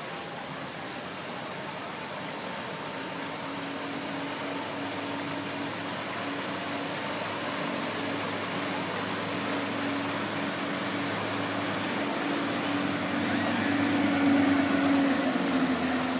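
Motor of a covered pontoon passenger boat running with a steady hum, growing louder as the boat approaches and passes close by. A steady hiss of water runs underneath.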